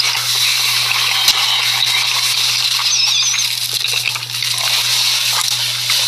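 Playback of a noodle ASMR video: close-miked crackling and hissing with scattered small clicks and a couple of brief squeaks, over a steady low hum.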